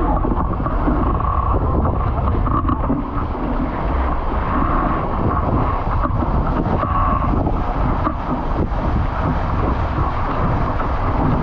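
Wind buffeting a boat-mounted action camera's microphone over the steady rush and hiss of water spraying off the hull of an International 14 skiff planing at speed.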